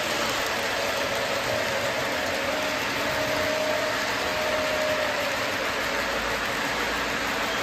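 Electric model train running at full speed on its track: a steady rolling noise with a faint wavering whine that fades out about five seconds in.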